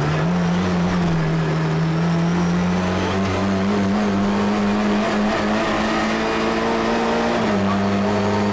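Rally car engine heard from inside the cabin, running hard under load. The revs jump up at the start, climb slowly for several seconds, then dip slightly about seven seconds in.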